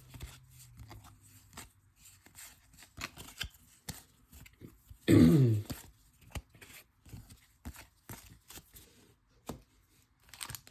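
Baseball trading cards being handled and flipped, a scatter of light clicks and rustles, with one short falling groan from a man's voice about five seconds in.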